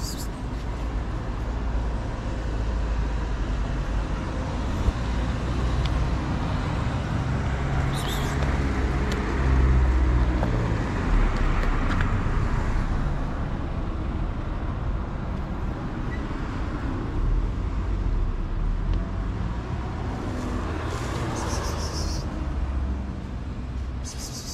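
Street traffic: a steady low rumble of passing vehicles that swells twice, with a few short high hissy noises.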